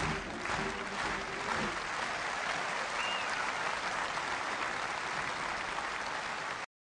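Large audience applauding, with the last notes of a military brass band fading out in the first two seconds; the applause cuts off abruptly near the end.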